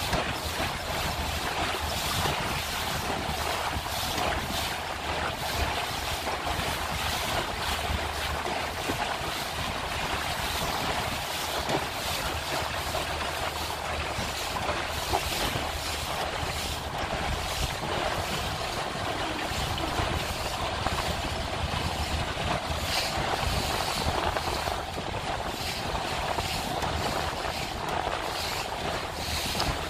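Wind buffeting the microphone and water rushing along the hull of a moving motorboat, with the outboard's low steady drone underneath.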